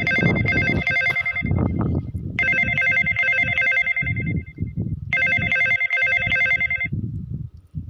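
A mobile phone ringtone playing: a bright electronic ring phrase of held tones, about two seconds long, sounds three times with short gaps, over a low uneven noise.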